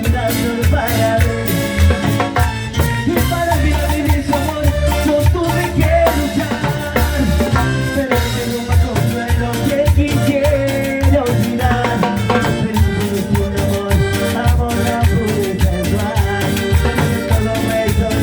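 Salsa music with percussion and shakers keeping a steady beat.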